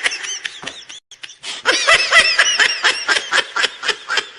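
High-pitched giggling laughter used as a meme sound effect: quick, repeated bursts of laughing in two bouts, with a brief break about a second in.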